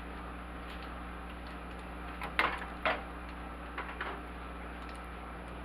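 Light clatter of kitchenware being handled: two sharp knocks about two and a half seconds in, then a softer pair about a second later, over a faint steady hum.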